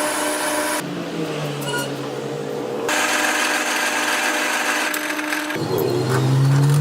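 Workshop machinery running steadily with a constant hum and whine. The sound changes abruptly about one, three and five and a half seconds in, as separate clips are joined.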